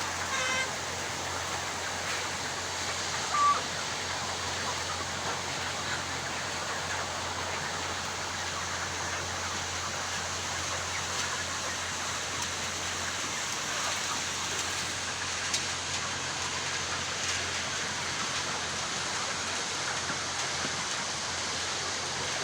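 Flock of chickens in a poultry house: a steady, dense din of many birds feeding, with a steady low hum beneath it. A short call sounds at the very start and a brief sharp call stands out about three and a half seconds in.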